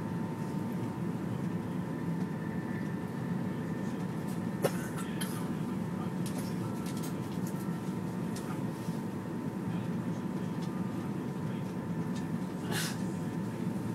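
Steady running noise heard inside the passenger car of a Flytoget electric airport express train at speed, with a faint steady whine. There is a single sharp click about four and a half seconds in and a brief hiss near the end.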